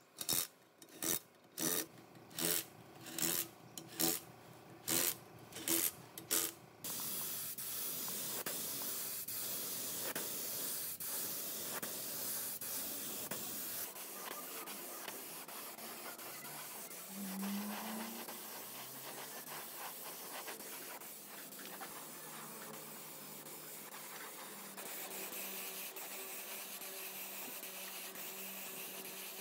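Hand abrasive work, rubbing and rasping as of filing or sanding: about two rasping strokes a second for the first seven seconds, then a continuous rubbing hiss.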